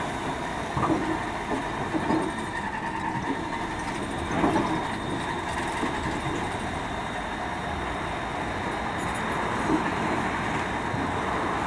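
Diesel locomotive running steadily close by, with a few short knocks or clanks, the loudest about four and a half seconds in.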